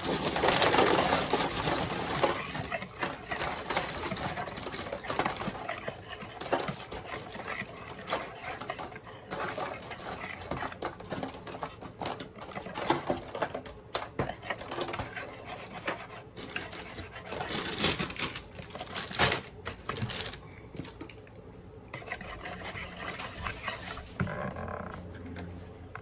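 Wire whisk beating instant pudding mix in a mixing bowl: rapid, uneven clicking and scraping of the wires against the bowl.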